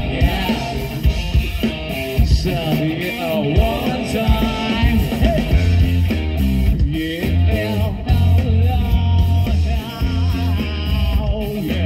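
Live rock band playing a song: a male singer over electric guitar, bass guitar and drums. The bass line grows heavy about halfway through.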